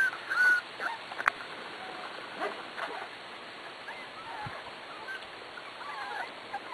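Young Pembroke Welsh corgi puppies whining and whimpering faintly now and then in short, high, wavering calls, with a light click about a second in.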